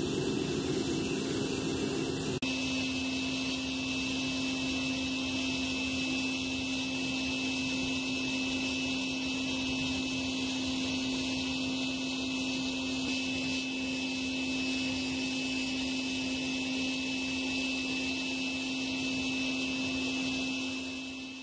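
Gas burner of a crucible furnace firing with a steady rushing roar and a steady hum under it. The sound shifts slightly about two seconds in.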